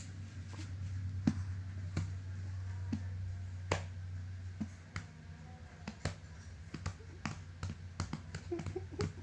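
Irregular sharp clicks and taps, growing more frequent near the end, over a low steady hum that fades about halfway through.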